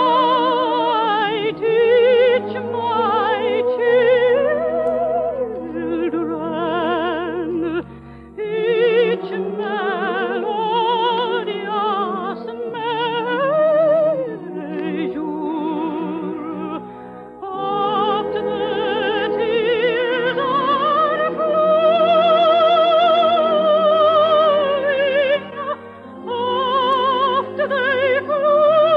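Operatic solo singing with a strong vibrato, a slow melody in long phrases with short breaks, over orchestral accompaniment.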